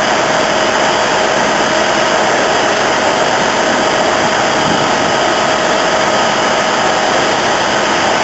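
Fire engines pumping water onto a fire: a steady, loud rushing roar of pumps and hose streams, with a constant whine held through it.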